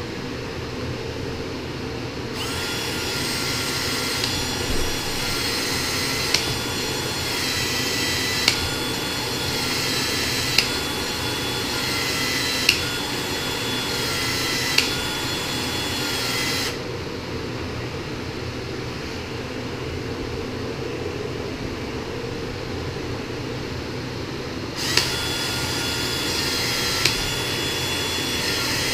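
Cordless drill running a long bit, a high motor whine with a sharp click about every two seconds. It stops about 17 seconds in and starts again near the end.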